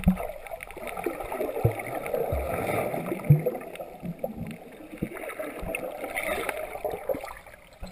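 Muffled water noise picked up by a camera held underwater in shallow seawater: a steady gurgling rush, with a few low knocks from the camera being handled about two and three seconds in.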